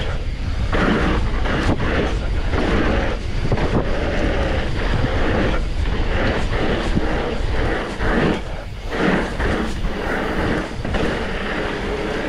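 Wind buffeting the microphone over the crunch and rattle of mountain bike tyres rolling on a gravel rhythm track, swelling and easing as the bike goes over each roller.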